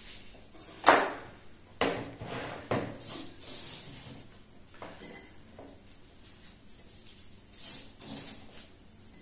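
A kitchen knife knocks sharply on a plastic cutting board three times, about a second apart, while garlic is being sliced and cleared. Quieter scraping and light clatter follow as the garlic is gathered and moved onto a plate.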